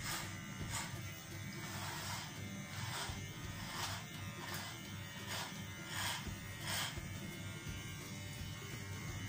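Electric hair clippers buzzing steadily as they cut through thick hair, with a short rasp roughly once a second as they are pushed through.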